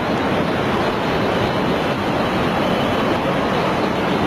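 Loud, steady rushing of surging floodwater, an unbroken churning noise with no separate impacts.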